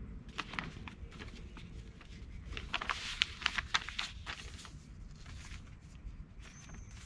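Packaging being handled: a run of crinkly rustles and clicks, densest in the middle, from cables and their wrapping being sorted. A faint short high chirp sounds near the end.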